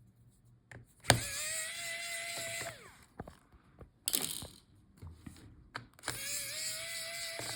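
Electric precision screwdriver running twice for about a second and a half each time, a steady motor whine that drops in pitch as it stops, backing out small laptop screws. Sharp clicks and light knocks of screws and tools come between the runs.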